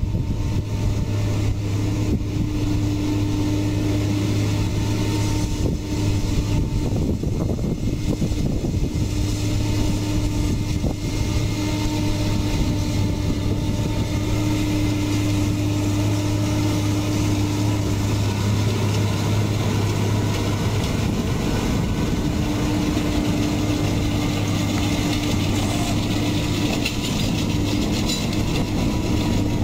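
Deutz-Fahr M650 tractor's six-cylinder diesel engine running steadily at an even note while pulling a Pöttinger loader wagon.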